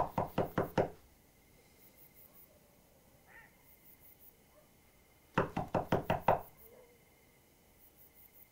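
Rapid knocking: a run of about seven quick knocks at the start, then another run of about seven about five seconds in.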